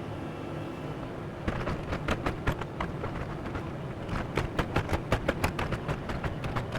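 Excavator engine running steadily; from about a second and a half in, a rapid, irregular run of clanks and scrapes of the bucket working rocky ground.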